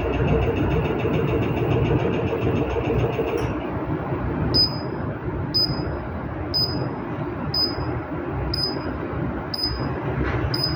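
Treadmill drive motor running with a loud noisy whine and fast high ticking that cuts off about three and a half seconds in. The treadmill console then beeps about once a second, the kind of alert that comes with its E-02 error code.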